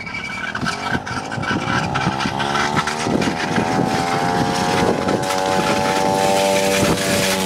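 110 cc pitbike engine running as the bike approaches, growing louder, its pitch rising over the first few seconds and then holding steady. Irregular clicks and rattles run through it.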